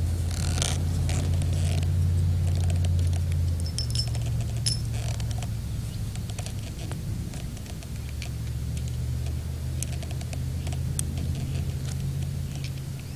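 Scattered small metallic clicks and rattles of a revolver being reloaded by hand, cartridges handled and pushed into the cylinder. Under them runs a steady low hum that changes about four seconds in.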